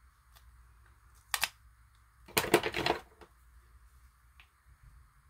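A lipstick tube and its cap handled in the hands: one short click, then about a second later a brief run of rapid small plastic clicks and rattling.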